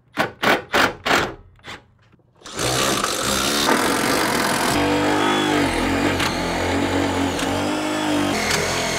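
A few short sharp sounds, then a cordless impact driver running continuously as it hammers a thick screw down into the bus floor, its pitch shifting lower partway through as the screw bites into thick metal.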